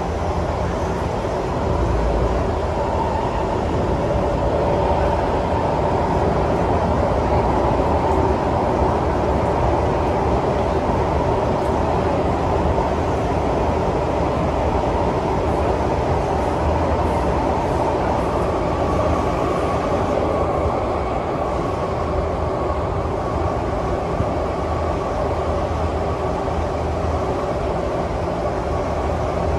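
Steady cabin noise inside a Singapore MRT train carriage: a continuous hum and low rumble, a little louder in the first third, with a thin steady tone joining about two-thirds of the way through.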